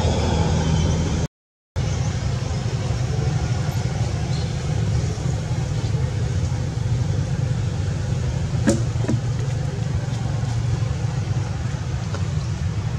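A steady low background rumble, such as wind on the microphone or distant traffic, cut off completely for about half a second early on, with one sharp click about two-thirds of the way through.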